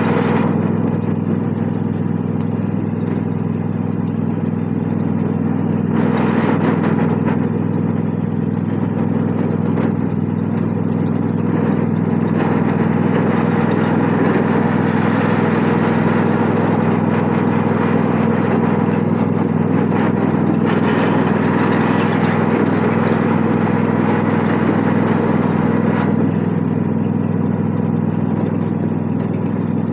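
Riding lawn mower engine running at a steady speed, its pitch holding even throughout.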